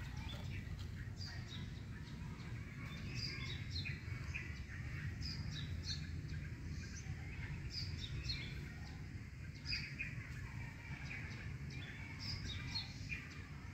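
Small birds chirping in short, scattered calls over a steady low rumble of outdoor background noise.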